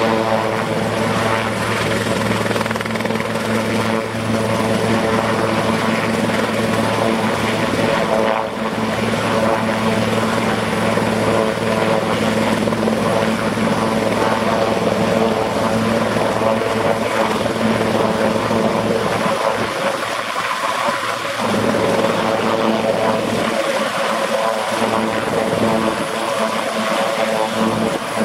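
Sikorsky S-76A twin-engine helicopter running on the ground with its main and tail rotors turning as it taxis backwards: a loud, steady turbine and rotor sound with several held tones. The low rumble dips for a moment about twenty seconds in.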